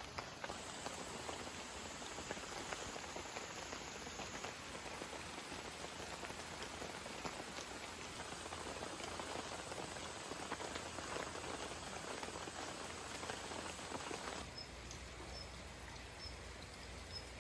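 Steady rain pattering, a dense even hiss of many small drop ticks, with a deeper low hum joining near the end.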